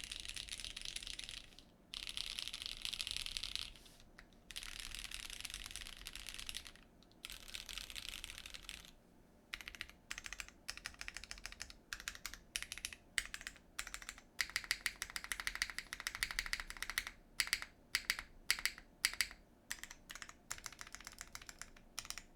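Typing on an ai03 Polaris mechanical keyboard with lubed Cherry MX Black linear switches, an FR4 half-plate, no case foam and GMK keycaps. Runs of fast, continuous keystrokes with short pauses give way after about nine seconds to slower, more separate key presses.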